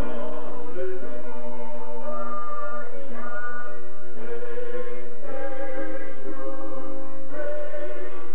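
A vocal group singing in close harmony, holding chords that move to new notes every second or so.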